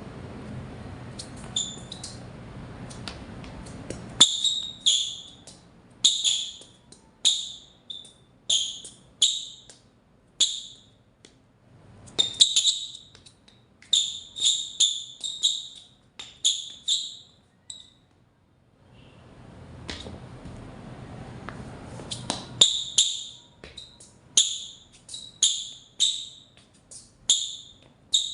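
Harden Volume 6 basketball shoe soles squeaking on a floor: many short, sharp, high squeaks in quick succession, in two runs with a break of a few seconds in the middle. The squeaking is the sign of the soles gripping the floor.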